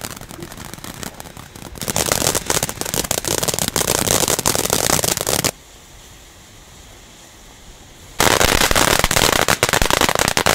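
Firework fountain spraying sparks with a dense, continuous crackle. About halfway through, the crackle drops abruptly to a faint hiss for nearly three seconds, then comes back just as loud.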